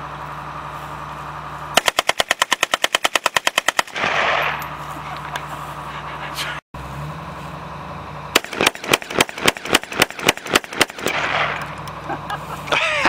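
AK-47 rifle fired on full auto: one burst of about twenty rounds in about two seconds. About halfway through comes a second, less even string of rapid shots from another firearm.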